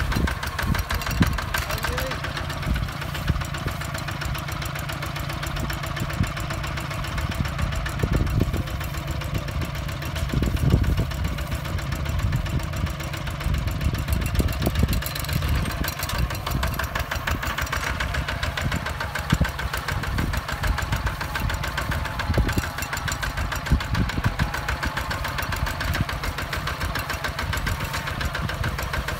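A Hinota HG Gold 155 DI walking tractor's single-cylinder diesel engine running steadily under load while pulling a plow through dry soil, with a rapid, even chug.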